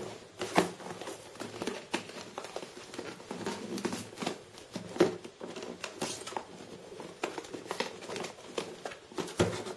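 Cardboard-and-plastic retail packaging being worked open by hand: irregular crinkling and rustling with scattered small clicks and snaps as the sealed box resists opening.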